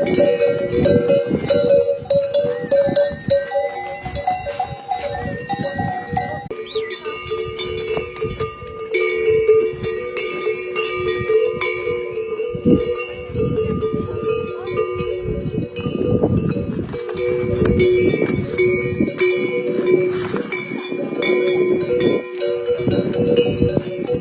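Many livestock bells on a herd of yaks clanking and ringing continuously, their tones overlapping, with a shift in the mix of bell pitches about six and a half seconds in.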